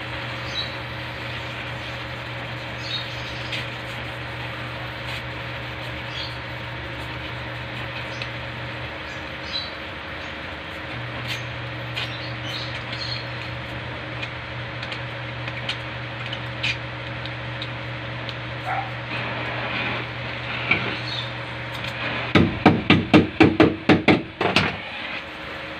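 Oxy-acetylene gas-welding torch hissing steadily with faint crackles as filler wire is melted in to patch a small hole in a car's sheet-metal body. Near the end, a quick run of about ten sharp taps.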